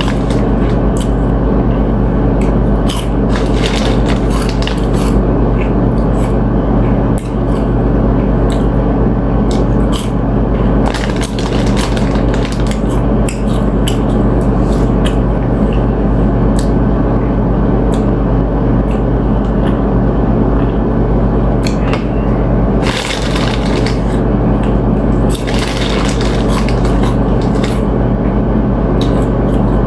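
Close-miked eating: chips crunching and food being chewed, in irregular crisp crackles with a few longer crunching stretches near the end, over a loud, steady low hum.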